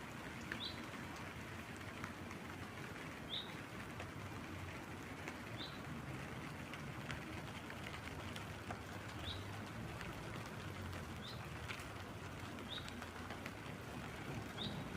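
Steady light rain and dripping in a garden, with a small bird repeating a short high chirp every one to three seconds.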